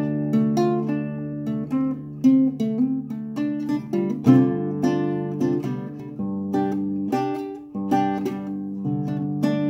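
Acoustic guitar in open G tuning, fingerpicked blues: single plucked notes and short chord figures over a ringing bass, with a louder accented note about four seconds in.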